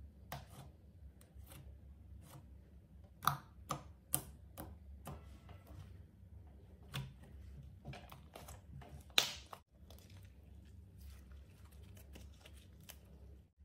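Hands pressing, stretching and squeezing a lump of silver-tinted clear slime, making soft sticky squishes and irregular little pops and clicks. The sharpest pops come about three, four and nine seconds in.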